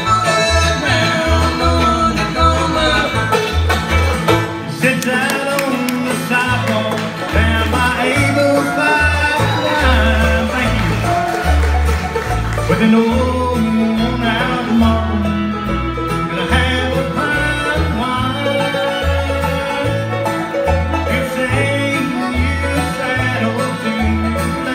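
Live bluegrass band playing: banjo rolls, strummed acoustic guitar and bowed fiddle over an upright bass plucking steady low notes on the beat.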